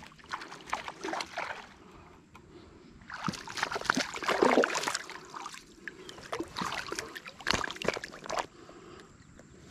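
Shallow river water splashing and sloshing around a hand as a small smallmouth bass is let go. The loudest splash comes about four to five seconds in, with a sharp click about seven and a half seconds in.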